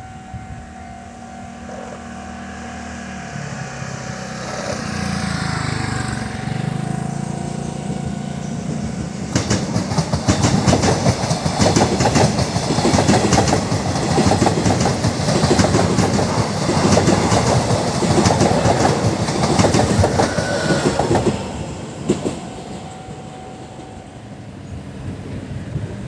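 Electric multiple-unit train passing on the rails. First a motor hum that shifts in pitch, then, about nine seconds in, loud rushing wheel-and-rail noise with rapid clickety-clack that stops abruptly about twelve seconds later.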